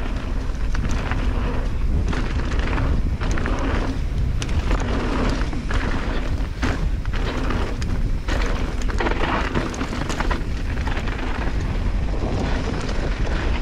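Mountain bike riding down a dirt trail: wind buffets the microphone with a deep, steady rumble, over the rolling noise of tyres on loose ground and frequent sharp clicks and rattles from the bike.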